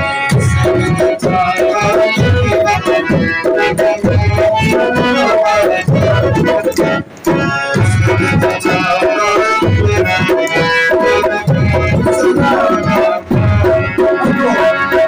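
Harmonium playing a melody over a hand drum keeping a steady rhythm, its deep bass strokes falling about once a second.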